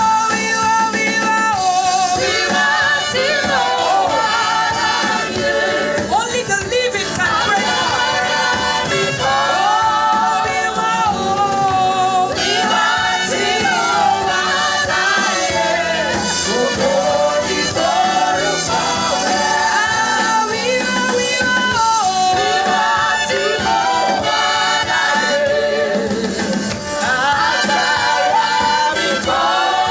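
Gospel worship song with singing over instrumental accompaniment, sung by the worship team and congregation.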